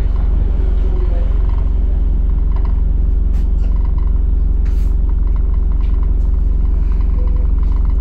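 Steady low rumble of an ADL Enviro400 double-decker bus's diesel engine at an unchanging note, heard from on board, with a few faint rattles.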